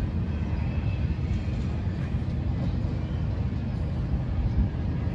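Autorack freight cars rolling past on the rails: a steady low rumble of steel wheels on track, with faint thin high tones over it.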